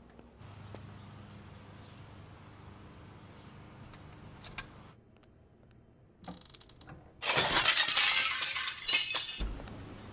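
A loud crash of breaking glass about seven seconds in, with shards clinking and ringing as it dies away over a few seconds. Before it there is only a faint hum with a few small clicks.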